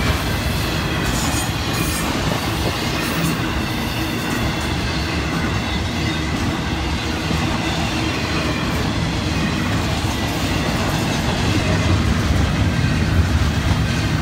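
Florida East Coast Railway intermodal freight cars rolling past: a steady rumble of steel wheels on the rails.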